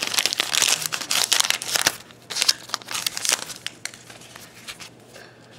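Plastic wrapper of a 2012 Topps Gypsy Queen baseball card pack being torn open and crinkled by hand. It is dense and crackly for the first two seconds, then comes in sparser crinkles that die down to quieter handling.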